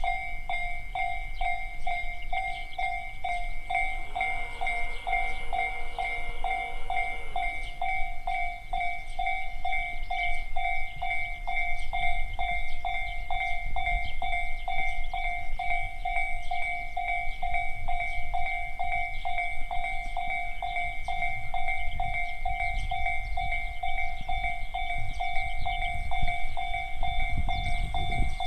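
Japanese level-crossing alarm of the Tobu 'sound C' electronic type ringing in rapid, evenly spaced two-tone dings. A low rumble builds beneath it near the end.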